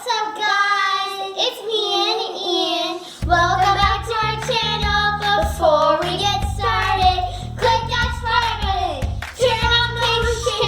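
A song sung in a child's high voice; a bass-heavy backing track comes in about three seconds in.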